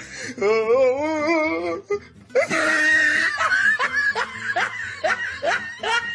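A person laughing hard: high, wavering laughter at first, then quick repeated bursts of laughter after a short breath.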